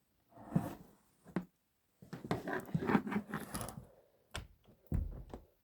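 Irregular handling noises of someone moving about: short knocks, scrapes and rustling, busiest between about two and four seconds in, with a dull thump near the end.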